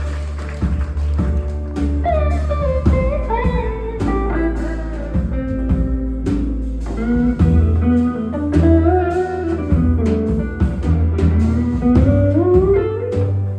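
Blues-style band instrumental: a lead guitar plays a melodic line with bent, sliding notes over a steady bass and drum kit.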